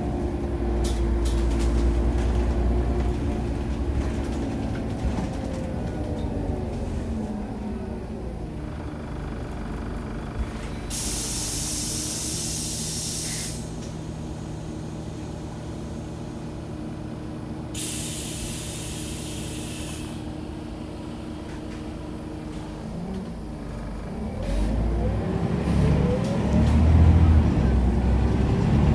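Inside a Scania OmniCity city bus: the engine and driveline wind down in pitch as the bus slows to a stop. While it stands there are two loud hisses of compressed air a few seconds apart, from the bus's air brakes or doors. Near the end the engine pulls away, rising in pitch and getting louder.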